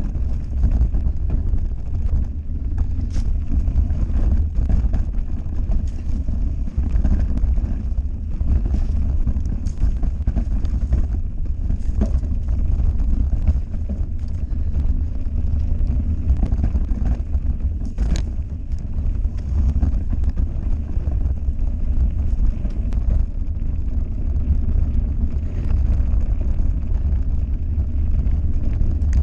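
Heavy wind buffeting on the microphone of a camera riding down a dirt trail on a mountain bike, over the steady rumble of the tyres, with a few sharp knocks and rattles from the bike as it rolls over rocks.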